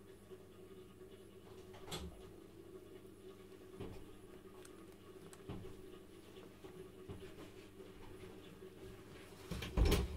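Kittens play-fighting on newspaper in a cardboard box: faint scratching and rustling of paws and claws on the paper, with a few soft taps, over a faint steady hum. A burst of louder bumps and knocks comes near the end.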